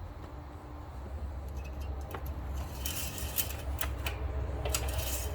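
Engine oil dipstick being handled and worked in its tube: a few light metallic clicks and scrapes, most of them in the second half, over a steady low rumble.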